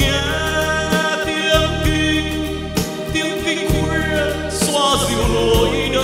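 A man singing a slow Vietnamese Buddhist ballad into a microphone over instrumental accompaniment, with sustained low notes underneath and held, wavering vocal notes.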